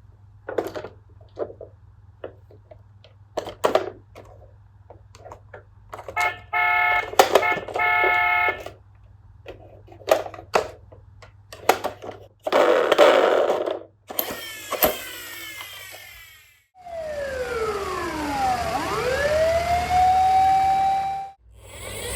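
A run of clicks and knocks, then a pulsing siren tone in two short bursts, and near the end a siren whose pitch glides down and sweeps back up to hold a high note.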